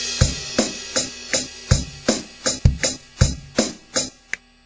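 Software drum machine kit playing a programmed beat of kick, snare and hi-hats, about three hits a second, with a crash cymbal's ring fading over the first part. The pattern stops abruptly near the end.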